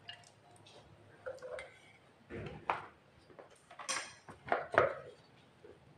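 Kitchen utensils and a food chopper being handled: several separate knocks and clinks as the plastic spatula and spoon are put down and the chopper's steel motor head is fitted onto its bowl, the loudest a little before five seconds in. The chopper's motor is not running.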